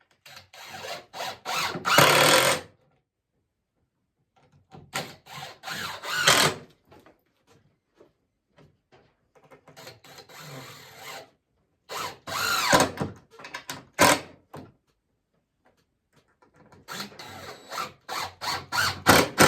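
Power drill driving screws into wooden fence pickets, in about five bursts of one to three seconds each with pauses between.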